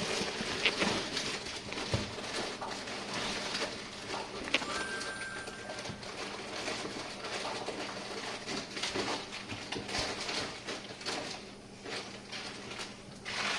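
Jenn-Air dishwasher filling with water at the start of a wash cycle: a steady hiss of water with irregular pattering and a faint low hum.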